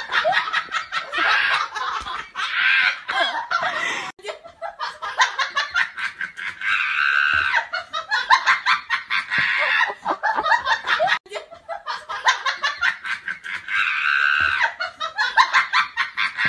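A person laughing hard in rapid ha-ha bursts, going on with short breaks about four and eleven seconds in, the same laugh seeming to repeat as a looped laugh track.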